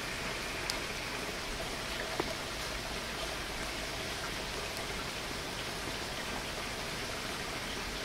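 Waterfall rushing steadily: an even, continuous splashing hiss of falling water, with two faint ticks about a second and two seconds in.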